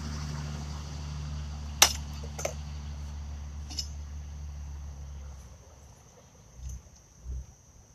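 Steel horseshoes clinking sharply twice about two seconds in, with a fainter clink a little later, over a steady low hum that fades out after about five seconds. A thin, steady insect trill runs through the second half.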